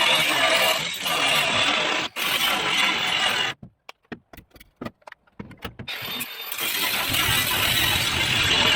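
Power tool cutting or grinding sheet steel with a loud, steady hiss. About three and a half seconds in it stops, leaving a couple of seconds of short clicks, then starts again with a deeper rumble underneath.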